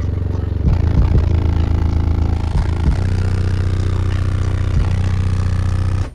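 A wall of Sundown 15-inch subwoofers playing a bass-heavy song at high volume: deep, steady bass notes that shift pitch now and then. The music cuts off abruptly at the very end.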